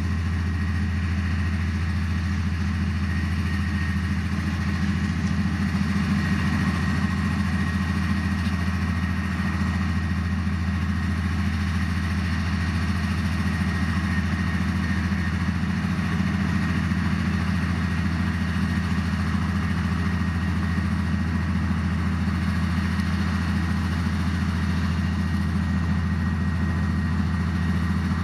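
Heavy diesel engine of earthmoving equipment running at a steady, even speed, a continuous deep drone with no revving.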